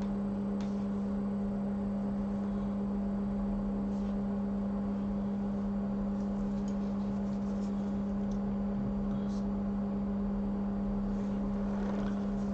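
Steady electrical hum on a workbench with one strong low tone and fainter tones above it, with a few faint clicks scattered through.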